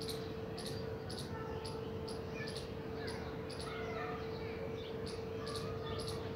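A steady hum with a sharp regular ticking about twice a second, and faint bird chirps over it.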